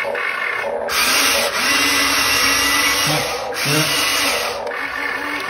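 Huina remote-control excavator's electric motors whirring with a steady whine as the boom and arm move, in two runs: a longer one of nearly three seconds starting about a second in, then a short one of about a second.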